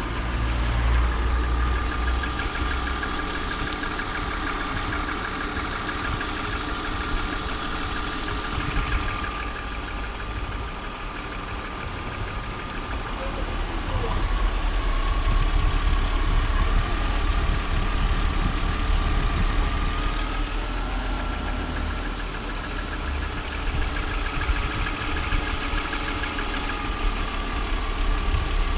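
BMW M52B25TU 2.5-litre straight-six engine idling steadily, with a thin high whine running over the engine note; it gets a little louder about halfway through.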